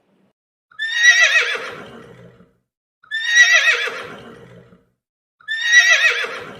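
Horse neighing: the same recorded whinny plays three times, a couple of seconds apart, each one a shaky, quavering call that trails off.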